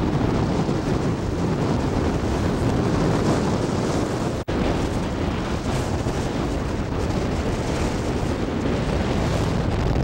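Steady rush of wind on the microphone, with road noise, from filming out of a moving car. The sound cuts out for an instant about halfway through.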